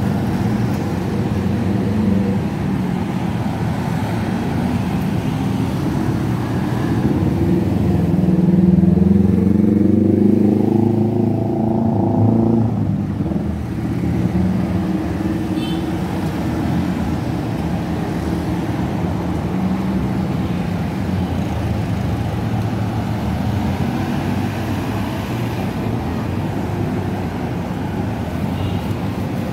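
City street traffic: cars and motor scooters driving past. About eight seconds in, one engine revs up, its pitch climbing for a few seconds before it cuts off abruptly.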